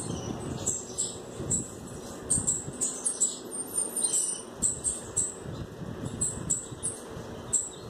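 Small birds chirping: short, high chirps repeated irregularly, several a second.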